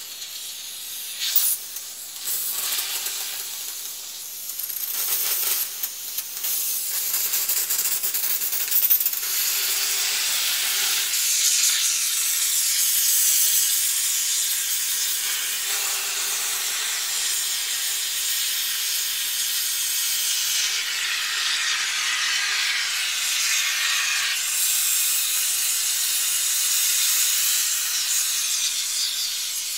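Aerosol tyre repair sealant can discharging through its hose as foam: an uneven, spitting hiss for the first several seconds that settles into a steady hiss.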